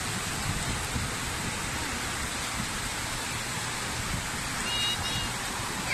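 Small sea waves breaking and washing up a sandy shoreline, a steady rush of surf. A brief high-pitched call cuts through about five seconds in.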